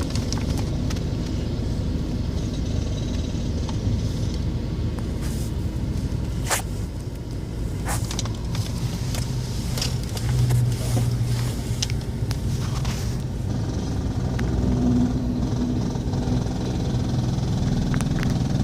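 Slow, low snoring from a sleeper, with drawn-out snores a few seconds apart over a steady low rumble.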